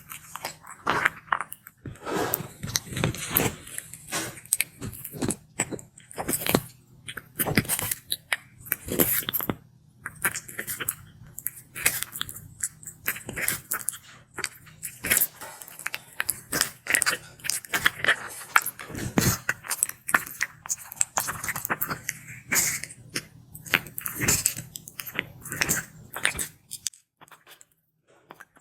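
Sulcata tortoise biting and chewing its food: crisp, crunchy bites at an irregular pace that stop about two seconds before the end.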